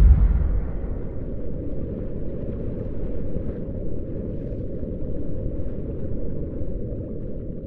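Deep, low rumble trailing off from a boom, loudest at the start, then holding steady and fading away near the end: an intro sound effect.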